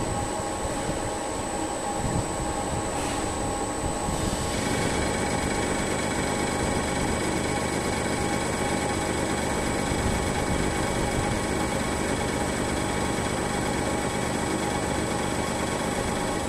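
CNC lathe spindle running at 600 rpm while cutting at 0.2 feed: a steady mechanical hum with a steady whine over it. About four and a half seconds in, a higher whine joins and the sound grows slightly louder.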